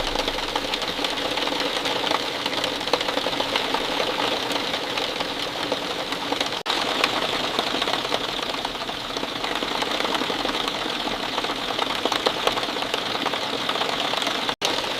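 Steady rain falling, a dense patter of countless small drops. The sound cuts out for an instant twice, about halfway through and near the end.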